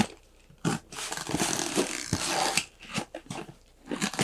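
A cardboard mystery box being torn open and handled: rasping, tearing and rustling cardboard for about two seconds, then shorter scrapes.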